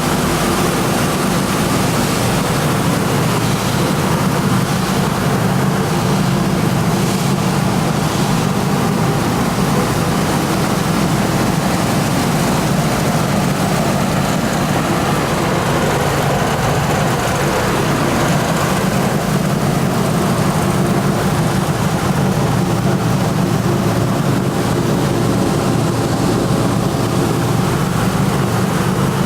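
AST-600 copper wire recycling machine running steadily: a loud, even mechanical drone with a constant low hum under a broad hiss.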